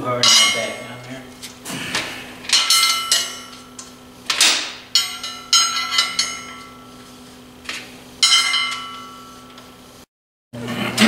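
Several sharp metal clanks and knocks, each ringing on briefly, as steel parts of a clutch pressure plate and flywheel assembly are handled and knocked together.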